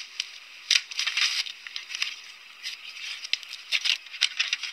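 Fluffy slime squeezed and pulled apart by hands, giving a run of small irregular crackles and pops with soft squelches.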